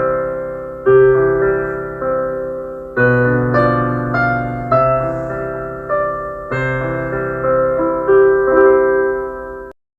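Background music: a piano playing struck chords and notes that ring and fade, each new one every second or so. The music cuts off suddenly near the end.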